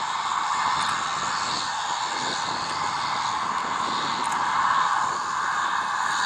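MiG-29M2's twin jet engines running at low thrust as it taxis: a steady rushing noise with a thin high whine.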